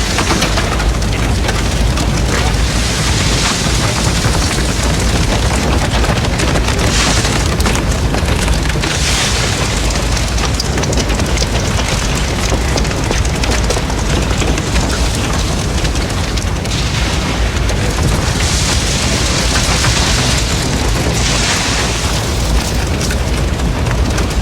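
Large building fire burning, with a steady deep rumble under dense continuous crackling and snapping. Several swells of loud hiss rise and fall over it.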